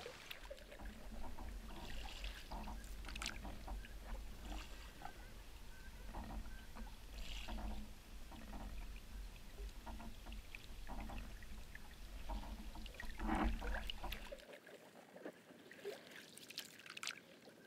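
Canoe paddle strokes on calm water: irregular splashes and gurgles of the paddle and of water running along the hull of a Northstar Northwind Solo canoe, over a steady low rumble on a hull-mounted microphone. The sound drops to much quieter, scattered water sounds near the end.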